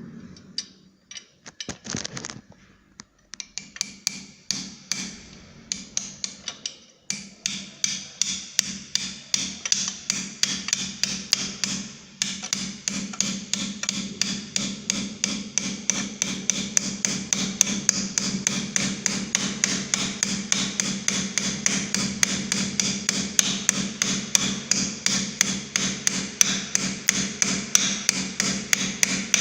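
Repeated hammer blows on metal, a screwdriver being driven against the jammed kick-start gear inside a scooter's CVT case to knock it back into place. The strikes ring and come irregularly at first. From about seven seconds in they turn into a steady rapid tapping, several a second, and grow louder about twelve seconds in.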